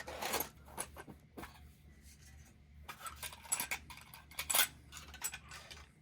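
Small metal clicks and clinks of a Yale Euro cylinder lock and its shim being handled as the lock is shimmed for taking apart. The clicks come in irregular clusters, loudest about half a second in and again between three and five seconds in.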